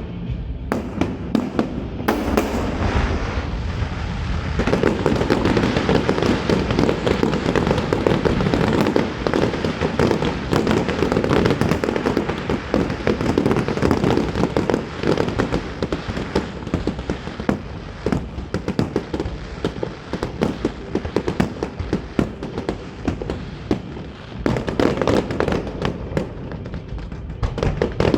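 Aerial fireworks display: a dense, continuous barrage of bangs and crackles, heaviest from about five seconds in, easing a little past the middle and building again near the end.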